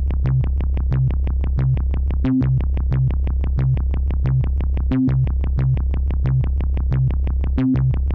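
Electronic background music: an even pulse of short synth notes, about four a second, over a repeating bass line that drops out for a moment about every two and a half seconds.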